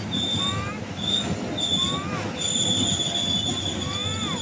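Train passing on the rails: a steady low rumble with a high-pitched wheel squeal that comes and goes in short stretches, then holds steady through the second half. A few short rising-and-falling whistles sound over it.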